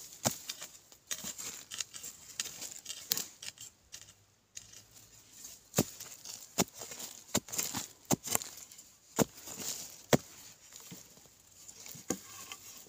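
A digging blade chopping into dry, hard, clumpy soil again and again, about a dozen sharp strikes at an uneven pace, with loosened earth and clods falling between them.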